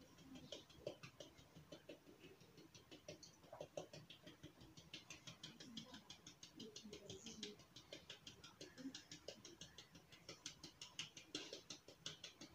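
Hand tapping a sieve of wheat flour to sift it into a bowl: faint, quick pattering taps, about four or five a second.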